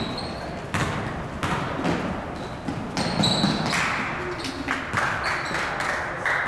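Basketball game on a hardwood gym floor: the ball bouncing as it is dribbled, with players' footfalls and short sneaker squeaks about three seconds in.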